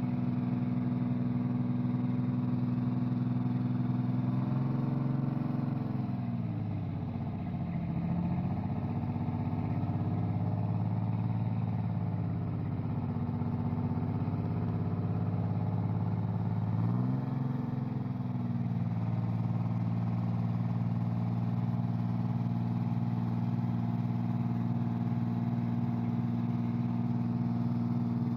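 A bus engine idling steadily. About five seconds in its speed drops, and near seventeen seconds it rises back to the earlier idle.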